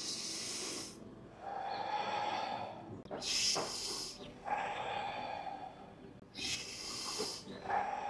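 A person breathing deeply and audibly in a steady rhythm during a breath-work practice, two kinds of breath taking turns: a rushing, hissy breath about a second long, then a breath with a slight resonant tone. The pair repeats about every three seconds.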